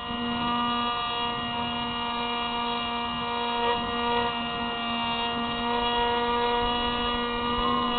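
Electric motor and propeller of a Spyhawk FPV model plane whining at a steady high pitch in flight, with the pitch starting to drop right at the end as the throttle comes back.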